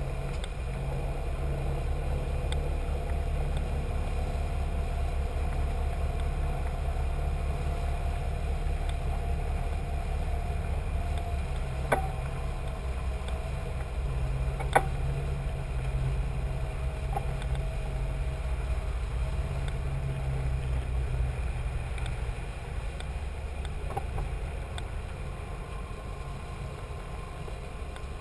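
A cruiser's engine running at slow cruising speed, a steady low drone with an even pulse, heard from the flybridge. Two sharp clicks come about 12 and 15 seconds in.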